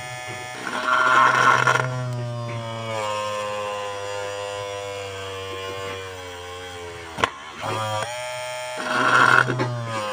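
Small 12-volt DC motor of a homemade mini drill whining as its thin bit drills into a printed circuit board. The pitch sinks slowly as the bit loads up, with a rasping cut about a second in and again near the end. A sharp click about seven seconds in, then the whine briefly dips and picks up again.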